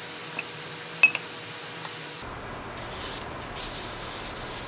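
A few sharp clicks, the loudest about a second in, then soft, uneven rubbing and scraping as a dome is slid and shifted into place on a styrofoam base.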